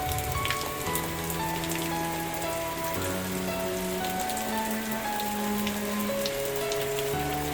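Steady rain with many small drops, over soft background music of slow, held notes that change about every second.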